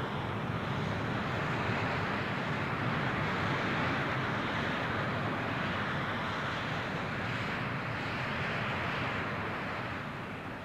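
Twin Pratt & Whitney F100 turbofans of an F-15 Eagle running as the jet moves away down the runway: a steady, even jet rush that eases off slightly near the end.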